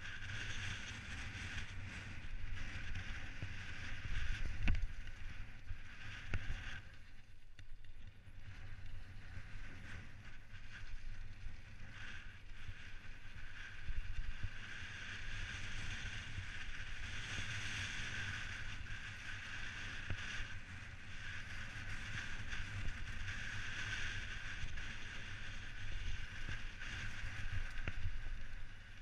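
Specialized Stumpjumper mountain bike descending a gravel trail, heard from a helmet camera: a steady hiss of tyres rolling over gravel with frequent small knocks and rattles from the bike, and wind rumbling on the microphone.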